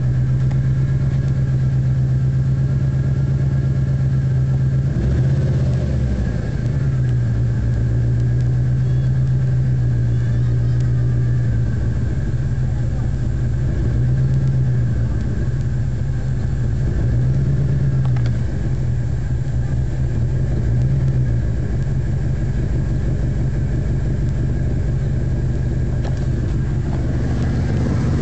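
Ford Taurus SHO engine idling unevenly: its idle speed sags and climbs back several times rather than holding steady. The owner says it is running badly and is still trying to work out why.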